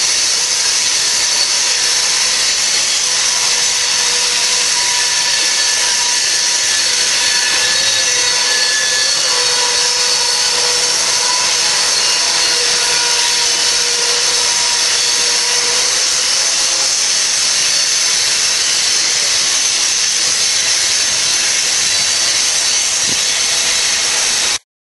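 Freight cars of a BNSF manifest train rolling downgrade on steel rails, a steady loud hiss with a faint high squeal from wheels or brakes that comes and goes in the middle. The sound cuts off abruptly near the end.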